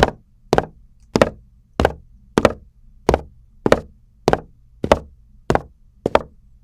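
Recorded footstep sound effect: a steady walk of about eleven sharp, evenly spaced steps, one roughly every 0.6 seconds, panned from right to left.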